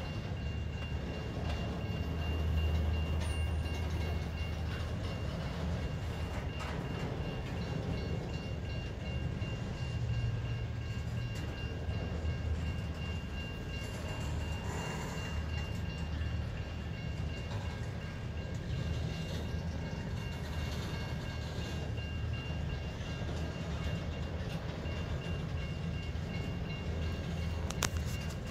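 Freight train of autorack cars rolling slowly past: a steady low rumble of wheels on rail with occasional clicks over the joints. A faint, steady high-pitched whine runs over it.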